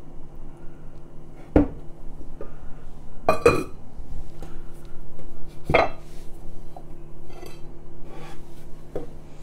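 Ceramic clinks and knocks as the glazed lid goes back onto a clay pot and a china plate is lifted off a terracotta bowl. There are sharp clinks about one and a half, three and a half and six seconds in, then a few lighter ones, over a steady low hum.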